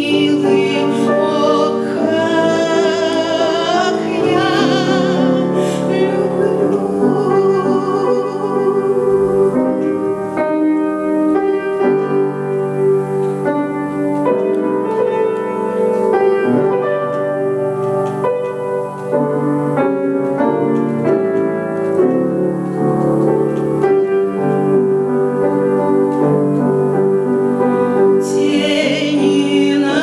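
A woman singing a Russian romance with vibrato to grand piano accompaniment. Her voice stands out most near the start and again near the end, with the piano carrying the sustained notes in between.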